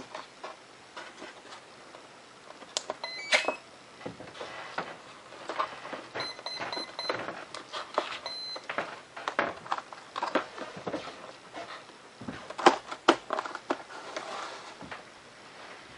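Clicks and light knocks from the model being handled. About three seconds in comes a quick rising run of short electronic tones, then a string of short high beeps around six to seven seconds in and one more a little after eight seconds.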